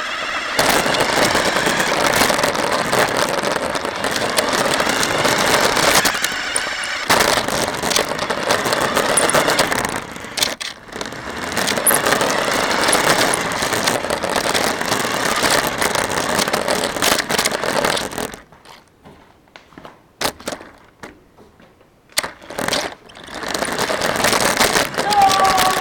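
Radio-controlled toy car driving, heard through a camera mounted on the car itself: its motor and wheels running over the ground with rattling and scraping. It pauses briefly twice, then goes quiet with a few clicks for several seconds near the end before driving off again.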